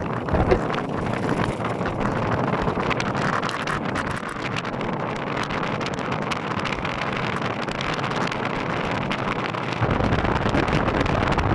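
Steady rushing wind noise on the microphone, with a deeper buffeting rumble that comes in near the end.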